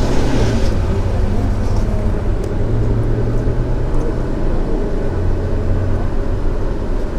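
Wind buffeting a small microphone: a steady, loud low rumble, with a low hum that swells and fades a few times.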